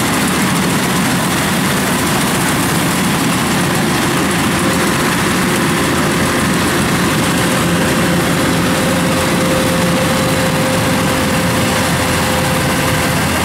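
Kubota crawler combine harvester running steadily under load as it cuts rice, a dense even machine hum of engine and threshing gear. A steady high whine joins about four seconds in.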